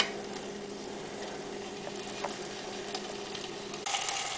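Precooked chicken sizzling as it reheats inside a closed George Foreman contact grill, with a faint steady hum. There is a click at the start, and the sizzle grows suddenly louder near the end.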